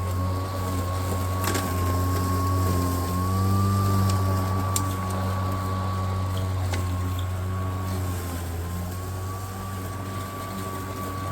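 Greenworks Pro cordless electric lawn mower running while cutting tall, overgrown grass: a steady motor hum with a thin high whine that wavers slightly in pitch, and a couple of faint sharp ticks.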